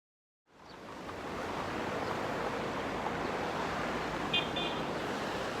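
Steady rushing of a river, fading in about half a second in, with a bird's short double chirp a little past four seconds.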